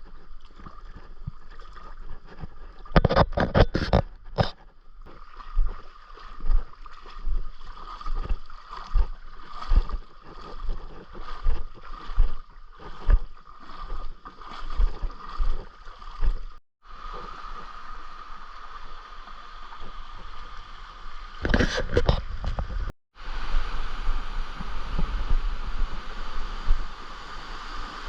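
Stream water running with a steady hiss, with repeated knocks or splashes about once a second through the first half and a louder cluster of them twice. The sound drops out briefly twice.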